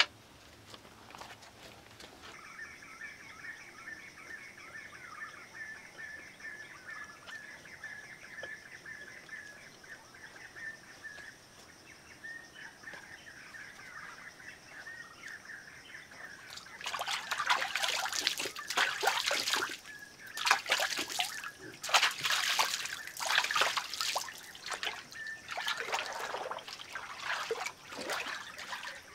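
Birds chirping over a steady high insect drone, then from a little past halfway, loud irregular splashing as a man wades into and splashes about in a small pool of water.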